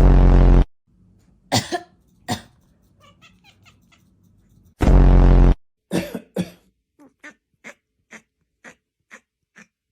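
A person coughing loudly twice, about five seconds apart, with a cat answering between the coughs in short calls, then a run of about six brief sounds about half a second apart.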